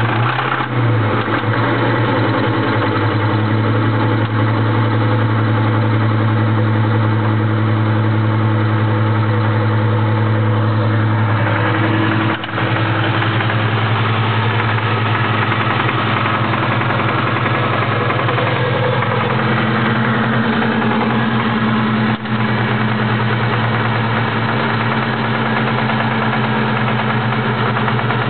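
Ford Mustang Mach 1 engine idling steadily just after a cold start, with the rattling and ticking the owner cannot identify and fears may be rod knock.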